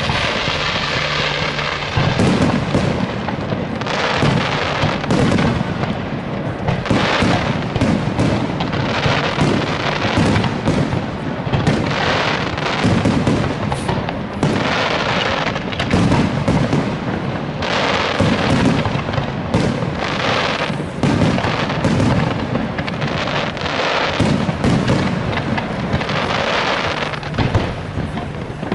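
Aerial fireworks display: shells bursting in rapid, overlapping succession with crackle, the barrage thickening about two seconds in and keeping up without a break.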